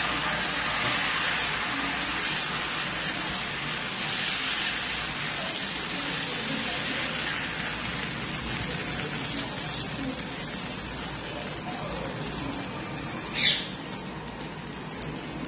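Dosa batter sizzling on a hot nonstick tawa as it is spread in circles with the back of a small bowl: a steady hiss. A brief high scrape comes near the end.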